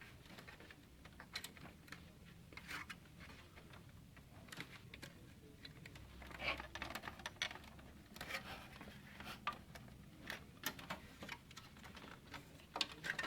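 Faint, irregular plastic clicks and knocks from a Dell OptiPlex 745C's case fan being pushed and wiggled against its retaining clips, which are holding it stuck in place.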